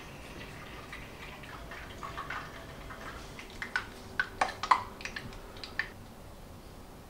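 Cooking oil heating in a saucepan for deep-frying doughnuts, giving a scatter of sharp little pops and ticks for about two seconds midway, several a second.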